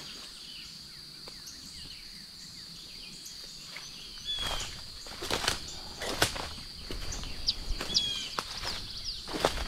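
Footsteps of a person walking on woodland ground, starting about four seconds in after a quieter stretch, over a steady high-pitched tone, with a few short bird chirps.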